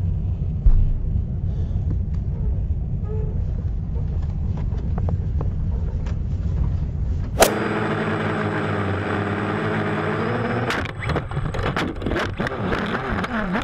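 Steady low rumble of a jet airliner heard from inside the cabin. After a sudden click about halfway through, the steady multi-toned whine of quadcopter motors takes over, then breaks up into knocks and scrapes as the drone tumbles in the dirt.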